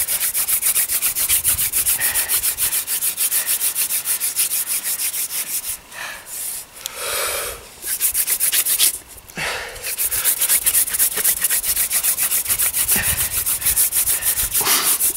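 Hand-drill friction fire: a Jerusalem artichoke spindle spun back and forth between the palms, its tip grinding into a white pine hearth board in a rapid, even rubbing rhythm. The drilling stops for a few seconds in the middle, then resumes. The board is already smoking and close to forming an ember.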